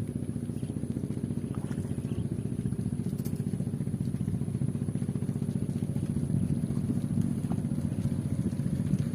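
A small engine running steadily at an even speed, a rapid low pulsing, with a short click about three seconds in.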